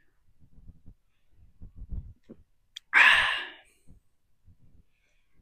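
A man taking a swig of beer, then letting out one sharp, breathy exhale of satisfaction about three seconds in.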